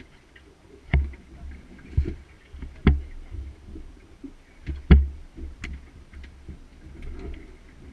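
Small boat rocking on the water: a steady low rumble of wind and water with irregular thumps of waves knocking against the hull, four plain ones, the loudest about five seconds in.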